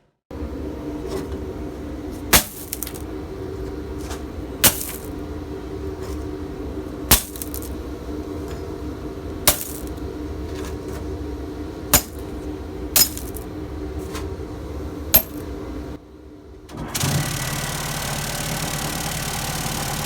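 A steady motor hum with sharp clicks about every two and a half seconds. About sixteen seconds in it stops, and a louder, different steady motor noise starts.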